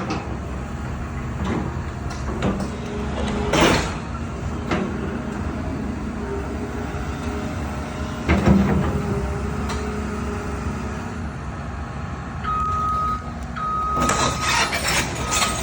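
Heavy diesel vehicle running steadily, with several sharp metallic clanks in the first half. Near the end the noise picks up and a warning alarm sounds two long beeps.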